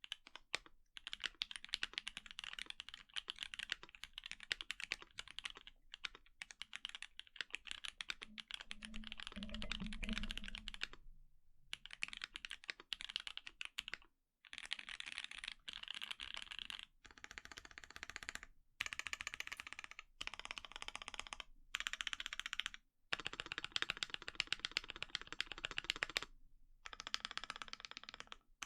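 Typing on an ai03 Vega mechanical keyboard with H1 switches (68 g springs, lubed with Krytox 205g0), an aluminum plate and GMK keycaps. Fast runs of keystrokes are broken by several short pauses.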